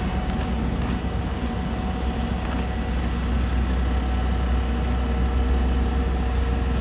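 Heavy diesel road-paving machinery running steadily with a deep engine rumble, growing a little louder about halfway through.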